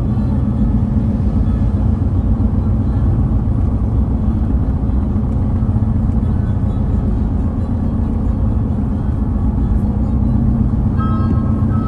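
Steady low rumble of a car driving along a road, engine and tyre noise at an even level. Near the end, a few sustained musical notes come in.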